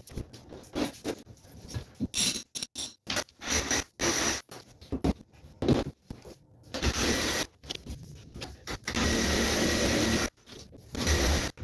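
Cordless reciprocating saw cutting cement board in several runs over the second half, the longest about a second and a half near the end. Before that, broken pieces of cement board scrape and crumble as they are pulled off the wall.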